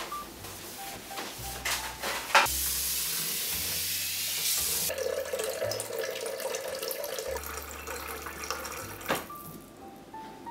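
A kitchen tap runs hard into a stainless steel sink for a couple of seconds. Then a refrigerator's water dispenser pours a stream into a glass measuring jug, filling it, and stops with a click near the end. Soft background music plays underneath.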